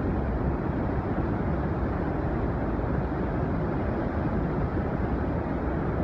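Upper Falls of the Yellowstone River: a large volume of river water pouring over the brink, a steady deep rushing with most of its weight in the low end and little hiss above.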